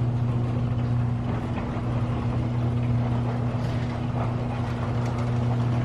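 A steady, loud mechanical drone holding one low pitch.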